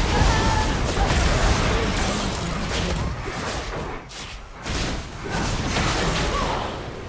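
Loud rushing, rumbling noise like a series of blasts, with deep rumble throughout. It drops away briefly about four seconds in and then comes back.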